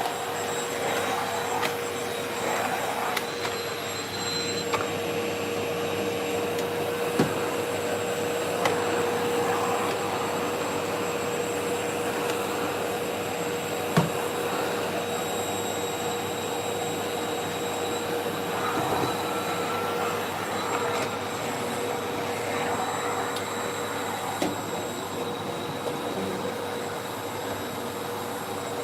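Household vacuum cleaner running steadily, a constant motor drone with a steady hum, broken by a few short sharp knocks, the loudest about halfway through.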